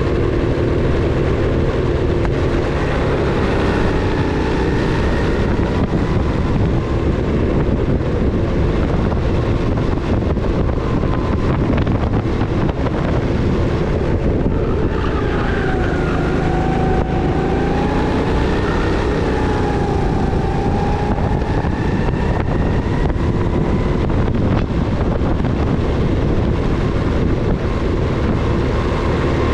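Rental go-kart engine running hard at racing pace, its pitch rising and falling repeatedly as the kart accelerates and slows, over a constant rush of noise.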